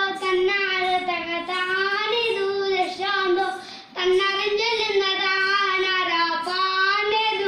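A young boy singing a nadan pattu, a Kerala Malayalam folk song, solo and unaccompanied, in two phrases with a short breath break about four seconds in.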